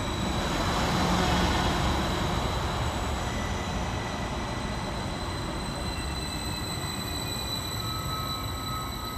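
Transport for Wales Class 231 Stadler FLIRT diesel-electric multiple unit pulling out of the station and running away along the track: a steady rumble of its running gear on the rails, loudest about a second in and slowly fading as it recedes.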